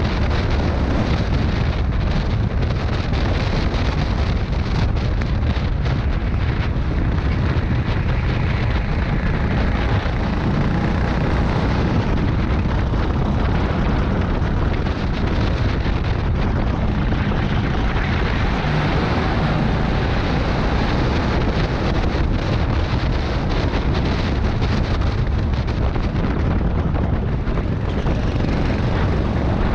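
Rental go-kart running at racing speed, heard from a camera mounted on the kart: a steady, dense rumble from the kart with wind buffeting the microphone.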